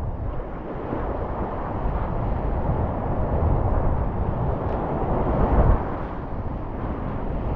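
Whitewater rapids of a glacial-melt alpine river at flood stage rushing around a kayak, a steady low roar mixed with wind buffeting on the camera microphone. A brief louder low surge comes about five and a half seconds in.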